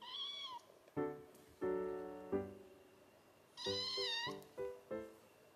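Kitten mewing twice: a short high-pitched arching mew at the start and a slightly longer one about three and a half seconds in. Soft piano music plays underneath.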